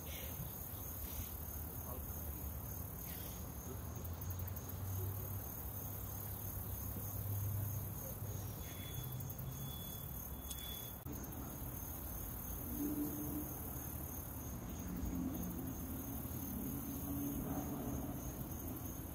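Crickets trilling steadily at one high, even pitch over a faint hiss, with low notes coming in during the second half.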